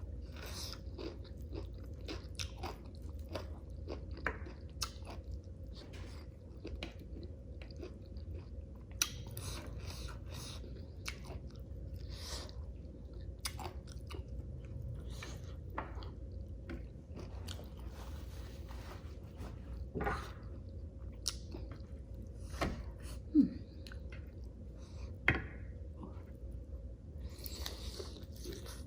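Close-up eating sounds: a person chewing and biting food, with wet smacks and occasional crunches, as at a meal of rice and spicy chicken curry with bones. A few sharper clicks stand out about two-thirds of the way through.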